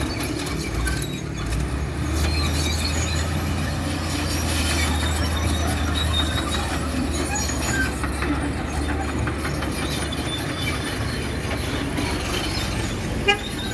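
Heavy earthmoving machine running, with a steady low engine hum and high metallic squealing over it, and a single sharp knock near the end.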